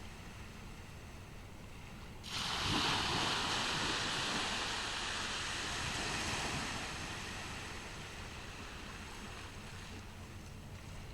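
Ocean surf on a beach: a wave breaks about two seconds in, and its hiss of foam washing up the shore lasts several seconds and slowly fades back into the steady background wash of the sea.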